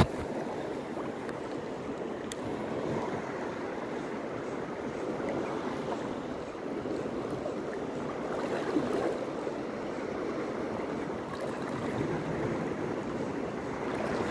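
Sea waves washing steadily on a shallow reef shore, a continuous rushing hiss. A sharp click right at the start.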